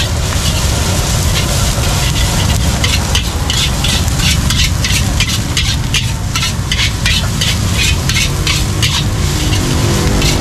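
Metal spatula scraping and tossing egg fried rice around a steel wok in quick repeated strokes, about three a second with a couple of short pauses, over the sizzle of the frying rice. A steady low rumble runs underneath.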